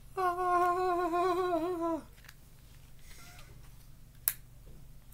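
A man's voice holding one long, slightly wavering note for about two seconds, then quiet hand handling with a single sharp click about four seconds in.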